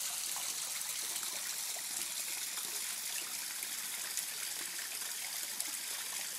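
Water spilling over a waterfall in a steady splashing trickle.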